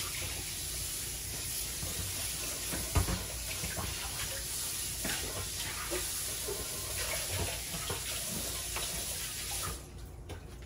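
Steady hiss in a kitchen, with scattered clinks and knocks of dishes and utensils being handled, the loudest knock about three seconds in; the hiss cuts off suddenly near the end.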